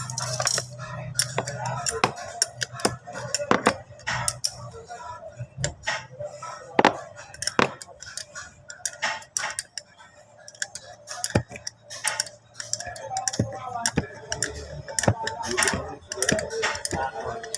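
Hand tools clicking and clinking against metal engine parts of a scooter, in irregular sharp ticks and knocks.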